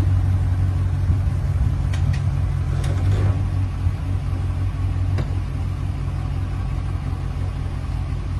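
Ram 1500 pickup truck's engine idling, a steady low hum, with a few light clicks.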